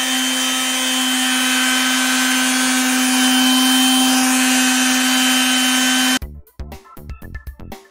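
Electric palm sander running steadily as it sands the edge of aluminum camper siding: a steady motor hum with a scrubbing hiss. About six seconds in it cuts off abruptly and rhythmic music with a beat takes over.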